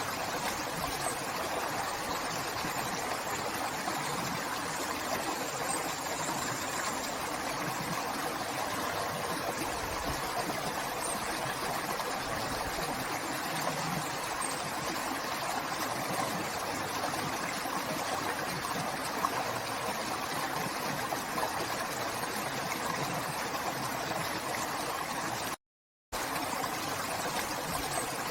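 A river flowing: a steady rush of water that cuts out to silence for about half a second near the end.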